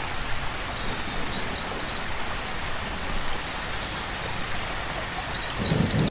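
Steady hiss of rain or rushing water. Over it, a small songbird sings two bouts of quick, high chirping notes, one at the start and one again near the end.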